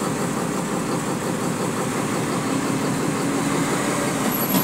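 Heavy diesel truck engine running steadily, with a faint low hum coming in about halfway and a short knock near the end.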